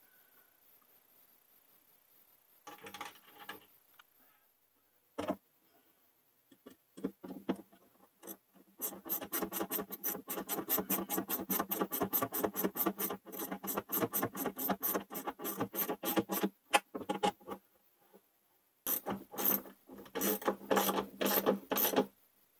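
Rapid, even clicking and scraping, several clicks a second, from hands working cables against the plywood of a cabinet: a few scattered knocks first, then a long run of about seven seconds and a shorter one near the end.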